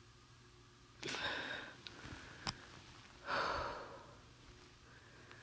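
A person letting go of a breath held for over a minute and a half: two heavy breaths, the first about a second in and the second a couple of seconds later. A sharp mouth click falls between them.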